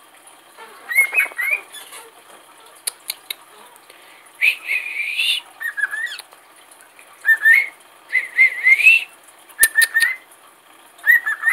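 Caged pet parrots, a cockatiel and a budgerigar, calling: short whistled chirps that glide upward in pitch, coming in clusters every second or so. Two sharp clicks sound just before ten seconds in.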